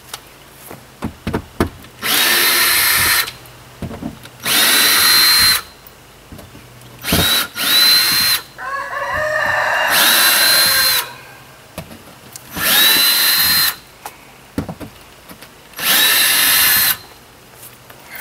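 Ryobi cordless power drill backing screws out of a camper's window frame, run in six short bursts of about a second each. In each burst the motor spins up quickly to a steady whine. Small clicks and knocks come between the bursts.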